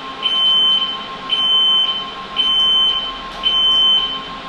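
The NGUV disinfecting tower's warning alarm is beeping before its UV bulbs switch on. It gives high-pitched beeps about once a second, each lasting most of a second, over a faint steady tone.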